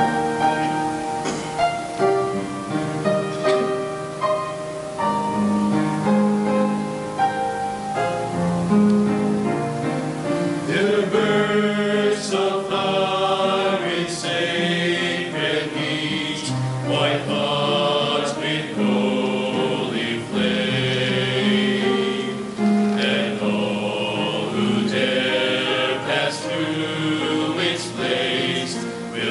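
Mixed church choir singing a hymn with piano accompaniment. The sound grows fuller and brighter about ten seconds in.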